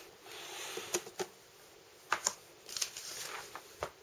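Scattered light clicks and rustles of plastic being handled: the toaster's plastic top cover being lifted off its slots.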